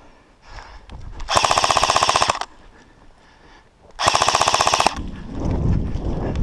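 Airsoft electric rifle (AEG) firing two full-auto bursts, about a second and just under a second long: a rapid, even clatter of shots over the whine of the gearbox motor.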